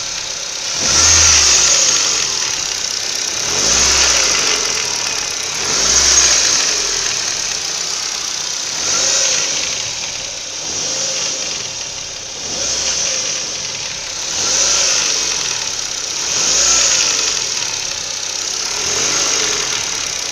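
Ford Focus 1.6 eight-valve Duratec engine running and being revved in short blips, about one every two seconds, the pitch rising and falling each time. Under it is a knock from the engine whose cause the owner is asking about.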